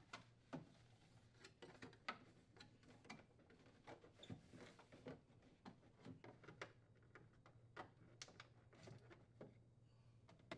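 Near silence, with faint scattered clicks and taps of plastic parts being handled: a wire connector snapped into a refrigerator's plastic air duct and the duct fitted into place.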